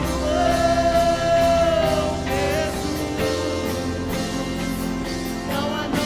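Live Christian worship music: a singer holds long notes over band accompaniment with a steady beat.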